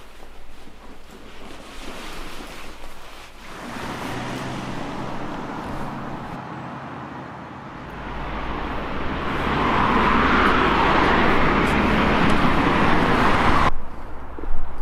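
A rushing noise that swells louder over several seconds, then cuts off abruptly near the end.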